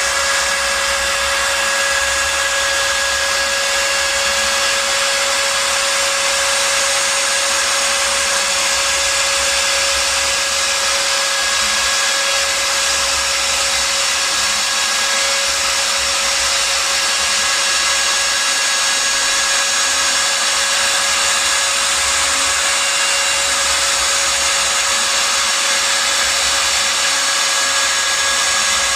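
Homemade CNC router's spindle running steadily with a constant high whine while it cuts.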